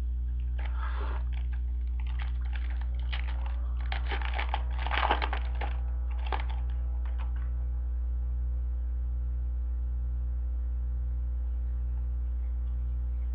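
Trading cards being handled and flipped through, light clicks and rustles for the first seven seconds or so, over a steady low electrical hum.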